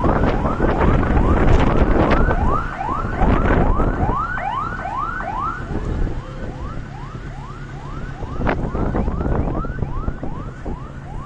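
An electronic alarm sounding a steady run of rising whoops, about three a second, over loud wind buffeting the microphone.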